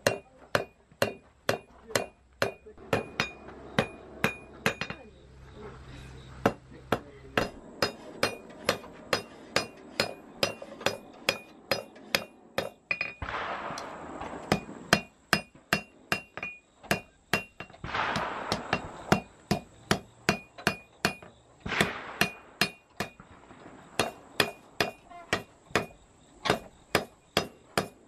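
Hand hammer striking a red-hot bar on an anvil in a steady rhythm, about two to three blows a second, each blow with a short metallic ring. A few brief rushes of noise come in around the middle.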